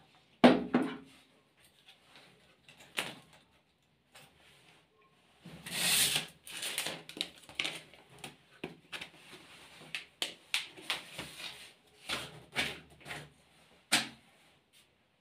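Handling noises from a plastic paint-sprayer unit and its power cable being picked up, set down and moved: a sharp knock about half a second in, then scattered clicks and taps, with a stretch of packaging rustling about six seconds in. The sprayer's motor is not running.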